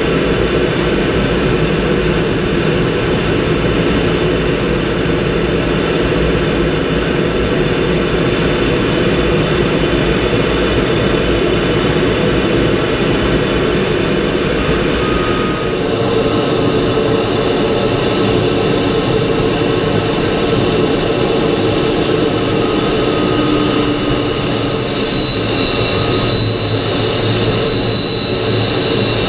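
MiG-15 jet fighter's turbojet engine heard from inside the cockpit in flight: a steady, loud rush of engine and airflow noise with a high whine that slowly drops in pitch in the second half.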